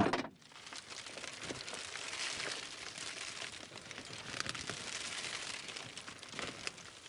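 Soybean residue and beans spilling out of the opened rock trap of a John Deere 9500 combine, a dense crackling patter of many small pieces that builds about a second in and fades near the end. A sharp knock comes right at the start as the trap is pulled open.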